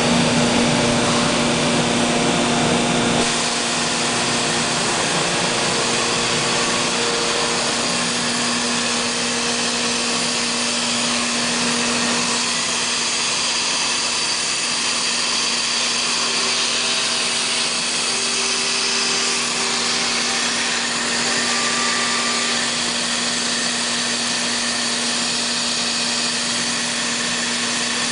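Wood CNC machining centre running steadily, its spindle and dust extraction making a continuous drone with a steady hum as it cuts a solid wooden door. The level drops slightly about three seconds in and then holds.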